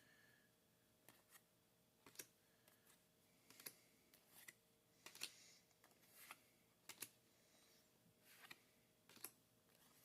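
Faint, scattered clicks and soft taps of trading cards being handled, slid and set down, about ten small sounds spread through the stretch.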